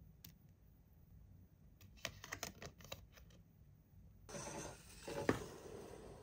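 Handling of toy packaging: a quick run of small clicks about two seconds in, then rustling with one sharp tap a little after five seconds.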